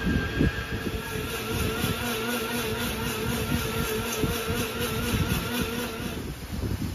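A motor running steadily: a droning hum with a fainter wavering whine over low rumbling. The hum drops away about six seconds in.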